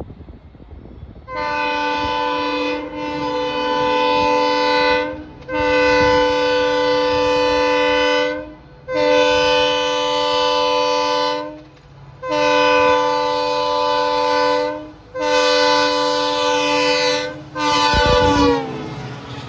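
WDP-4D diesel locomotive's horn sounded again and again: about seven long blasts of two to three seconds each with short gaps. On the last blast near the end the pitch drops as the locomotive passes, and a loud rumble of the passing engine joins it.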